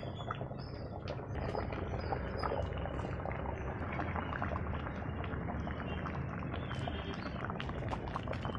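Thick murrel fish curry bubbling in a clay pot, a dense steady run of small pops and gurgles at the boil.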